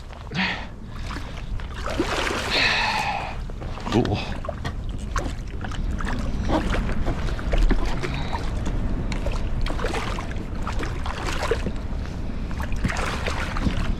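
A striped bass landed beside a kayak: water splashing and sloshing and scattered knocks as the fish is handled and unhooked, over a steady low rumble.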